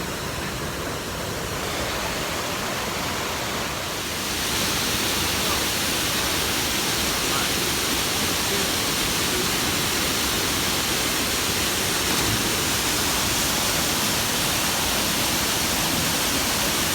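Waterfall pouring into a rock pool: a steady rush of falling water that grows louder about four seconds in.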